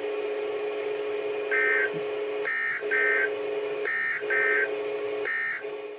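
Emergency Alert System end-of-message data bursts on NOAA Weather Radio receivers: short buzzy digital bursts, three from each of two radios slightly out of step, about one every second and a half per radio. Under them runs a steady low tone.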